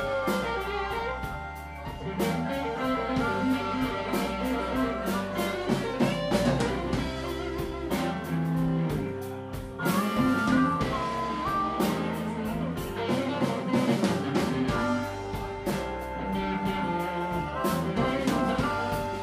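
Live blues rock band playing: electric guitar over drum kit, bass guitar and keyboard, with held notes that bend in pitch.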